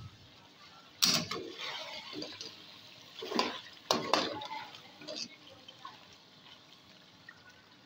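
A slotted metal spoon stirs and scrapes thick chicken curry in a metal cooking pot, clanking against the pot. The loudest clank comes about a second in and another just before four seconds. The stirring dies away after about five seconds.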